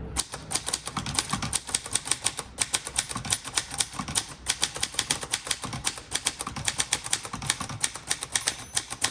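Typing on a 1961 Royal Forward portable typewriter: a fast, steady run of key and typebar strikes, several a second, with brief pauses about two and a half and about four seconds in.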